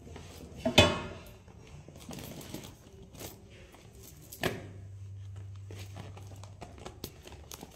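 Handling noise close to a phone's microphone: two sharp bumps, the first the loudest, with knit cloth rustling against the phone between them. A low steady hum follows the second bump for about two seconds.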